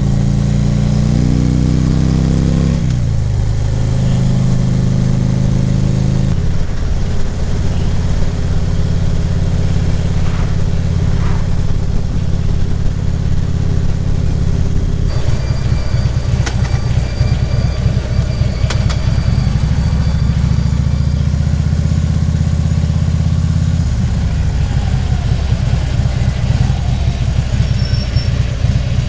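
Harley-Davidson V-twin engine running under way. Its note drops and rises a few times with throttle and gear changes, over a steady rush of road and wind noise.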